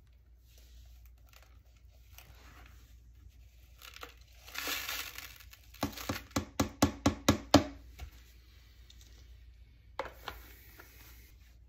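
Dirt, dog hair and debris pouring out of a cordless stick vacuum's plastic dirt bin into a trash can, then a quick run of about eight sharp knocks as the bin is rapped to shake the rest loose. A single click near the end as the filter cap is fitted back on the bin.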